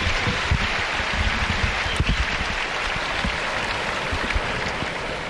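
Large arena crowd applauding, a dense steady clatter of clapping that eases slightly near the end.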